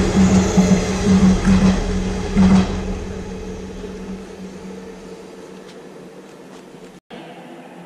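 JNR 189 series electric train in cream-and-red limited-express livery passing through at speed, its wheels and motors running with a low pulsing hum as the last car goes by. The noise then fades steadily as the train pulls away.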